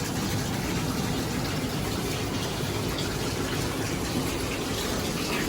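Heavy rain pouring down, a steady even rush of noise.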